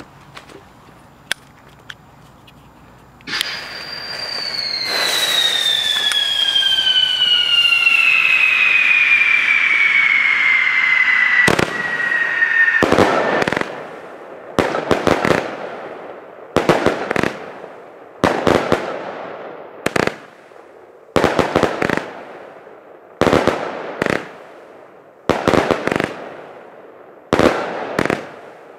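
Thunder Kong XXL firework battery firing. First comes a loud hiss with a whistle falling steadily in pitch for about ten seconds. Then a long run of sharp bangs, roughly one a second and often in pairs, each with a short crackling tail.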